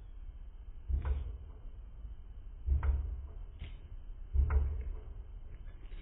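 A tit pecking at sunflower seeds on a cloth-covered board, heard slowed down from 240 fps footage: three deep thuds about a second and a half apart.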